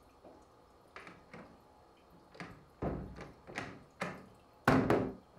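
Round metal doorknob being turned and worked on an old wooden door: a string of short clicks and knocks, loudest in a cluster about a second before the end.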